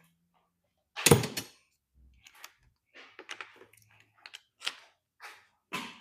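Metal tools and engine parts knocking and clinking while connecting-rod bolts are worked loose: one sharp clank about a second in, then a string of lighter clicks and taps.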